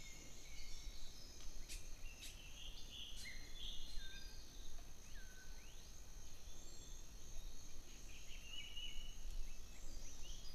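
Scattered short bird chirps and whistled calls, a few sweeping down in pitch, over a steady high insect drone. A few faint clicks come in the first three seconds.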